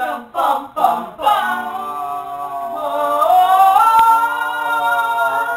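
Several voices singing a cappella: three short notes, then one long held note whose pitch steps up twice before it settles. A single sharp click is heard in the middle of the held note.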